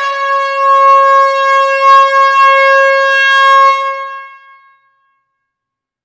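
Air horn giving one long, steady blast of about four seconds in a hall, then fading out.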